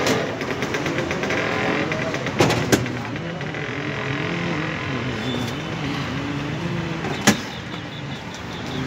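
Steady street traffic noise with indistinct voices, broken by a few sharp knocks, the loudest about seven seconds in.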